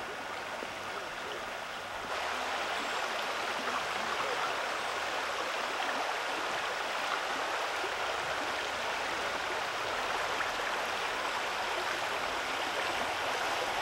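Shallow forest creek running over rocks, a steady rushing, babbling flow that gets louder about two seconds in and then holds.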